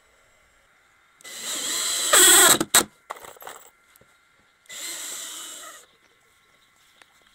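Cordless drill-driver driving screws into pine boards: one run of about a second and a half that gets louder near its end, then, after a few short bursts, a second run of about a second.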